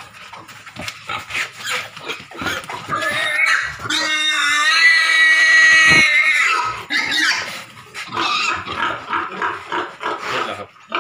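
Fattening pig squealing in distress while restrained by a rope snare looped around its upper jaw for an injection behind the ear: rough grunting squeals, then one long, loud high scream from about three to seven seconds in, then more short squeals.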